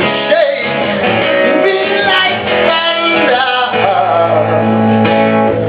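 Live song: guitar with a male voice singing wordless, gliding runs. A steady low note is held from about two-thirds of the way in.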